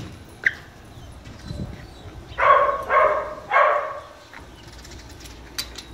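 A dog barking three times in quick succession, a little over two seconds in.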